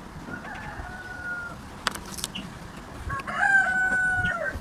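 Rooster crowing twice, a fainter crow and then a louder, longer one near the end, each held on one pitch and dropping at the close. A couple of sharp clicks fall between the crows.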